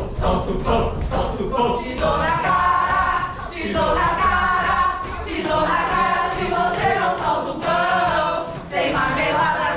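A group of voices singing together without instruments, in several held phrases.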